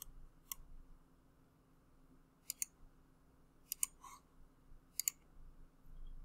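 Computer mouse clicking faintly, four clicks a second or so apart, the last three each a quick press-and-release pair.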